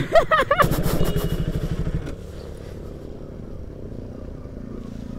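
Motorcycle engine running with a rapid, even pulsing note, then easing off about two seconds in to a lower, steady running sound.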